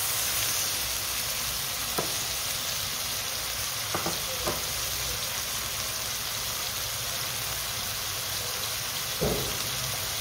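Diced boneless chicken sizzling in ghee in a non-stick wok, a steady frying hiss. A few light knocks of a silicone spatula as it is stirred.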